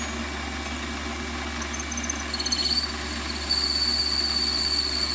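Warco WM180 lathe running while a 6.8 mm drill cuts into an aluminium block, with a steady machine hum. About two seconds in the drill starts a high squeal that comes and goes, then holds steady from about three and a half seconds on.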